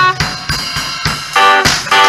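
Live band of acoustic guitar and drum kit: the drums carry a short stretch with kick, snare and cymbal while the guitar drops back, then strummed guitar chords come back in strongly over the beat about one and a half seconds in.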